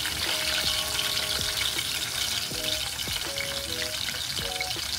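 Green peppers deep-frying in a small pot of hot oil, a steady dense sizzle, with a few light taps as wooden chopsticks turn them in the pot.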